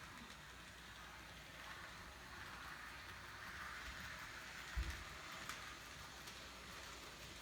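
Faint whir and light clicking of an N scale model train running on track, swelling through the middle and easing off, with a single dull bump a little after the middle.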